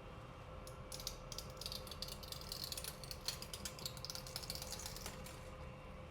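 Small irregular clicking and rattling of bulkhead electrical connectors being handled and fitted into a 3D-printed carbon-fibre PPS plate. It starts about a second in and stops near the end.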